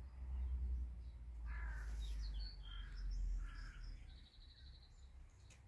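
Birds calling outdoors: three harsh crow caws about a second apart, scattered high chirps, and a rapid high trill about four seconds in. Under them a low wind rumble on the microphone fades out about four seconds in.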